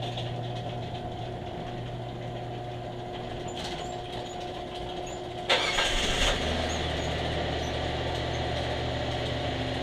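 An electric garage door opener's motor runs with a steady hum. About five and a half seconds in, the 2008 Kia Rondo's engine is cranked, catches in under a second, and settles into a steady idle. This is its first start after the evap purge valve was replaced and the P0441 code cleared.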